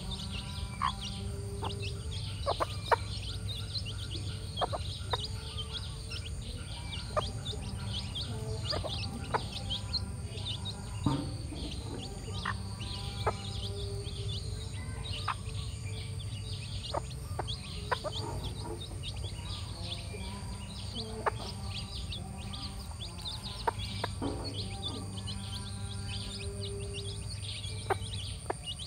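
Brood of chicks peeping constantly in short high chirps while the mother hen clucks now and then as they peck at food.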